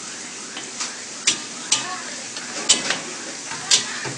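Char kway teow frying in a wok with a steady sizzle, and about five sharp scrapes or knocks of the spatula against the wok as the noodles are stirred.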